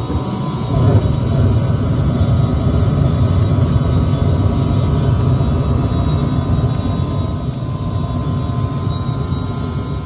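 Gas furnace burners lighting: the flame carries across the burner row and the sound swells over the first second, then all burners burn with a steady low rush of gas flame.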